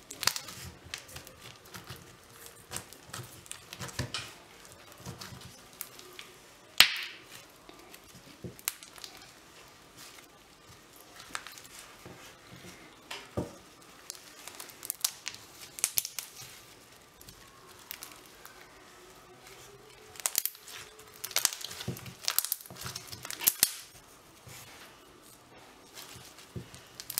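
Crunchy floam slime, blue slime full of polystyrene foam beads, being squeezed and kneaded by hand. It gives off irregular crunching, crackling and popping in bursts with quieter gaps between them, and one loud pop about seven seconds in.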